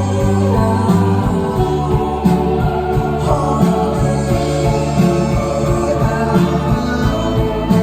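Indie rock band playing live: sustained chords over a steady beat.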